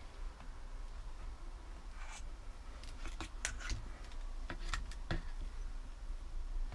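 Someone moving about in a small, bare room: scattered short clicks and crackles over a low steady rumble, most of them bunched in the middle of the stretch.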